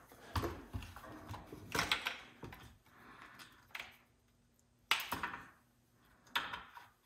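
Scattered knocks, scrapes and light clatters of hands working on a Stihl 056AV chainsaw, as its starter cover is taken off. The sharpest knock comes about five seconds in.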